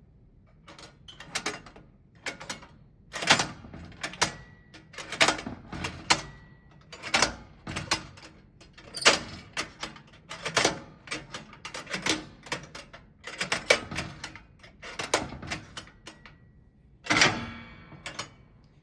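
Tom Thumb toy cash register being worked by hand: repeated clicks and clacks of its keys and mechanism, coming in quick clusters about once a second. A faint high ring hangs on after a couple of the presses.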